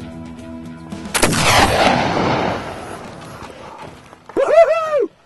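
A single shot from a 10-bore (.79 calibre) Jaeger flintlock about a second in: a sudden black-powder report whose echo dies away over roughly two seconds. Near the end comes a loud, high call that rises and falls.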